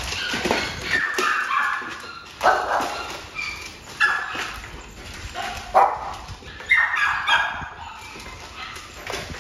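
A dog giving several short yips and barks, a second or two apart, over the crunching and clatter of dogs eating kibble from a plastic tray.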